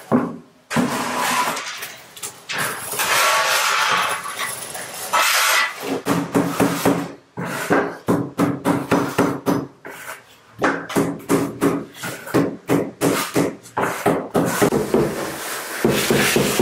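Scraping and knocking of tile-laying work, a trowel working cement tile adhesive and porcelain planks being set. From about six seconds in, electronic background music with a steady beat takes over.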